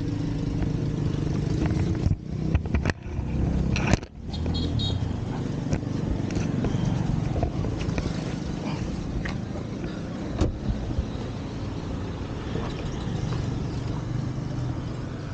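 A car running steadily close by, with a few sharp clunks and knocks about two to four seconds in and one more about ten seconds in.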